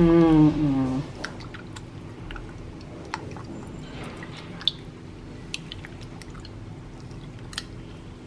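Soaked wheat-flour dough being squeezed and kneaded by hand under milky water in a steel bowl, pressing out the wheat milk: faint wet squelching and sloshing with scattered small clicks and drips.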